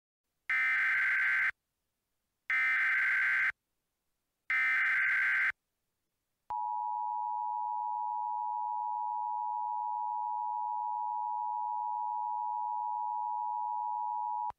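Emergency Alert System header data bursts: three buzzy, screeching digital tone bursts about a second long each, a second apart. About a second after the last burst comes a steady attention tone, held for about eight seconds, that announces an incoming tornado warning.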